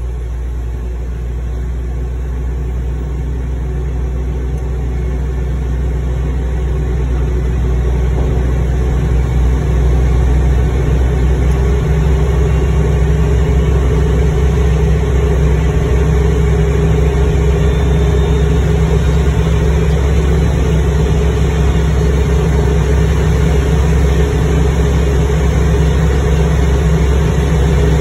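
Pushback tug's engine running steadily as it tows an Airbus A320 on a towbar, heard from inside the tug's cab. It grows louder over the first ten seconds or so, then holds steady.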